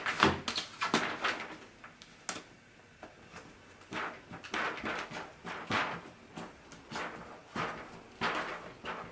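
Self-adhesive vinyl film being stretched and smoothed onto a surface: irregular plastic rustles and scrapes, with a short lull about three seconds in.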